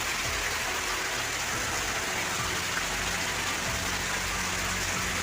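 Heavy rain falling, a steady, even hiss of downpour.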